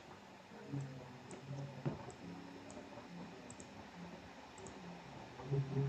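Quiet computer mouse clicks, with one sharper click about two seconds in, against faint low tones that come and go.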